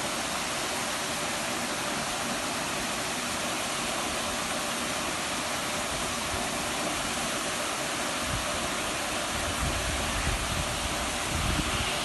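Steady rushing of water, an even hiss without pauses, with a few low rumbles in the last few seconds.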